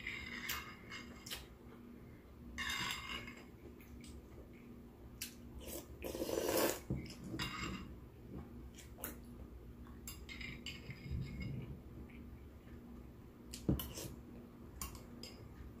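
Eating soup from a bowl: a spoon clicking and scraping against the bowl now and then, with eating sounds in between. The loudest is a noisy sound about a second long, a little after six seconds in.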